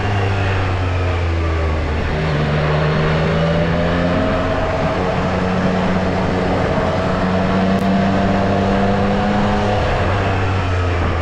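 Triumph Street Triple R's three-cylinder engine running under way, its pitch dropping and rising several times as the throttle is rolled on and off.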